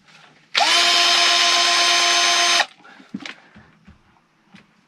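Cordless drill with a 6 mm bit spinning up quickly and running at a steady pitch for about two seconds, then cutting off sharply.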